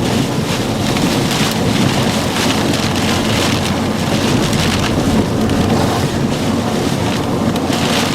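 Heavy thunderstorm rain and wind beating on a moving vehicle: a steady, loud rush with a low road-and-engine rumble underneath.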